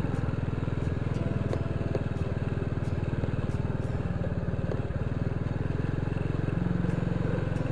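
Honda Biz motorcycle's small single-cylinder engine running at a steady, even speed.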